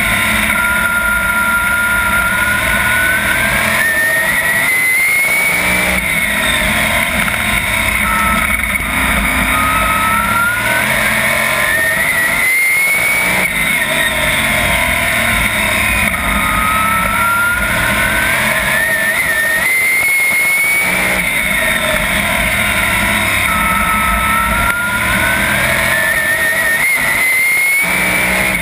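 Onboard sound of a 410 sprint car's V8 engine at racing speed. Its pitch climbs steadily and then drops back about four times as the car accelerates off each turn and lifts for the next.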